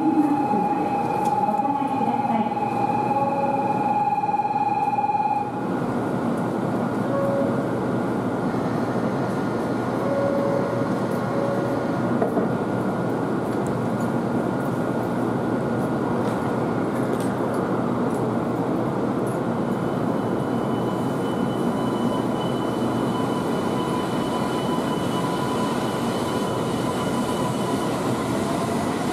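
Train running on rails: a steady rumble and rail noise, with a high steady whine that stops about five seconds in, and fainter steady tones later on.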